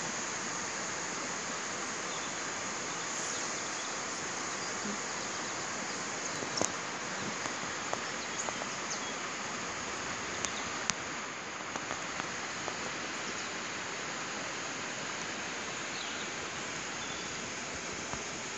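Steady rushing of a nearby stream, an even noise with a few faint short clicks.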